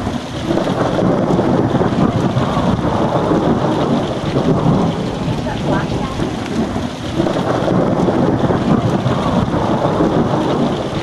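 Thunderstorm: steady heavy rain with rolling thunder rumbling under it, swelling and easing in waves.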